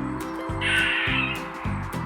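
One harsh animal call, lasting under a second, starting about half a second in, over background music.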